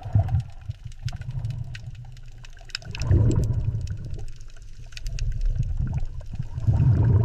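Low, swelling water sound with scattered small clicks and bubbling, like an underwater ambience; it grows louder about three seconds in and again near the end.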